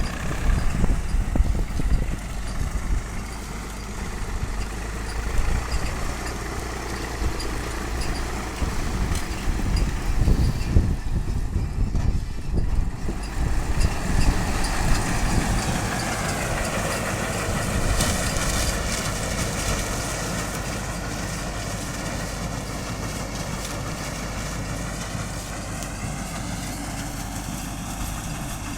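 Zetor 4718 tractor's diesel engine running steadily while working with a SIP Tornado forage harvester. In the second half its pitch slowly drops and rises again.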